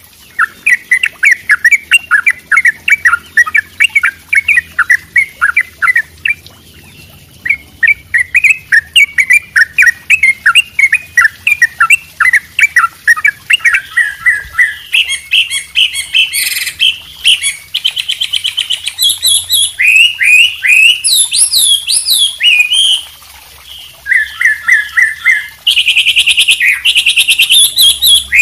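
Songbirds singing in combination: white-rumped shama, wambi and trucuk bulbul. For the first half the song is a fast run of repeated chattering notes. About halfway in it turns into varied higher whistles, rising and falling phrases and quick rattling trills.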